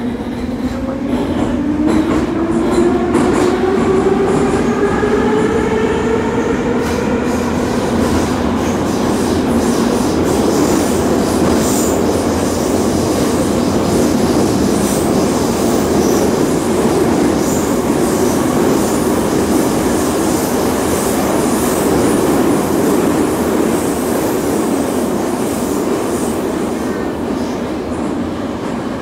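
Metro train heard from inside the passenger car: the traction motors whine, rising in pitch as the train accelerates away from the station over the first eight seconds or so. It then settles into a steady loud rumble of wheels and running gear in the tunnel.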